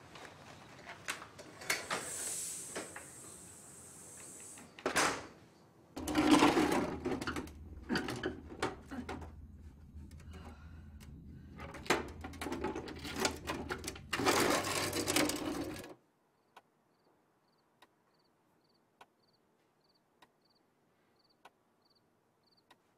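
Clicks, knocks and rustling of something being handled, with two louder scraping rushes. Then near silence with faint regular ticking, about two a second, from a wall pendulum clock.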